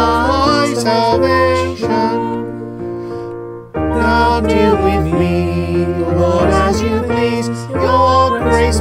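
A hymn sung with held-chord accompaniment. One verse ends about two seconds in, and after a short lull the next verse begins just before four seconds in.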